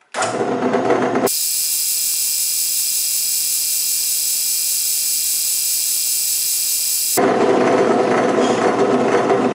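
Drill press running and drilling through a thin metal plate backed by wood, a steady machine whir with cutting noise. About a second in, the sound switches abruptly to a high, steady hissing whine. It switches back to the lower drilling sound about seven seconds in.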